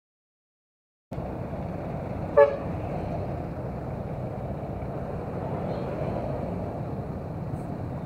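After about a second of dead silence, steady motorcycle riding noise, engine and wind, cuts in. About two and a half seconds in, a vehicle horn gives one short toot, the loudest sound here.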